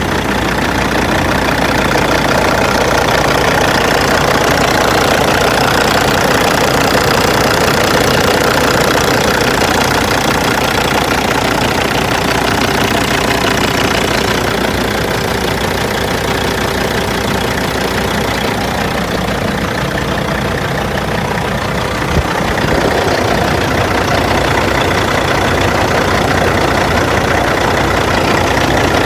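Kenworth dump truck's diesel engine idling steadily, with one brief click about three-quarters of the way through.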